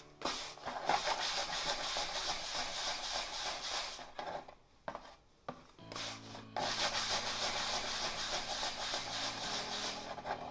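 Dry rubbing or scraping against a surface in two long stretches, the second starting about six and a half seconds in, over soft background music.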